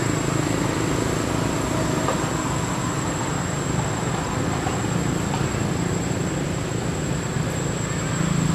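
Steady background rumble and hiss with no distinct events, plus a thin, steady high whine.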